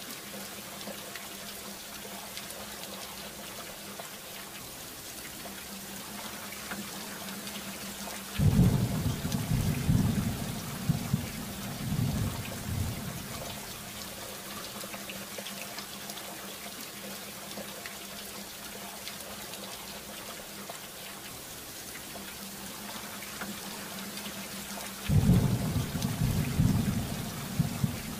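Steady rain falling, broken twice by thunder: a deep rumble starts suddenly about eight seconds in and rolls for a few seconds, and another starts near the end.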